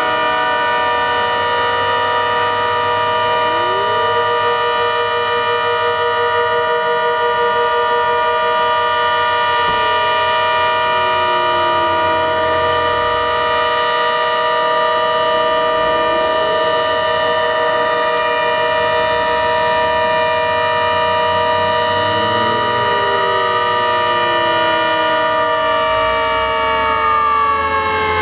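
ACA Hurricane outdoor warning siren sounding a steady, chord-like tone, with fainter tones sliding up and down beneath it. Near the end its pitch starts to fall as it begins to wind down.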